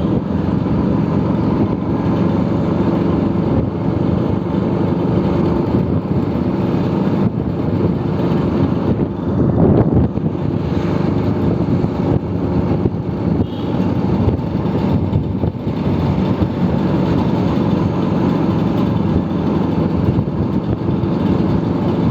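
Vespa scooter engine running steadily while riding, with road and wind noise. A brief louder rush comes about midway.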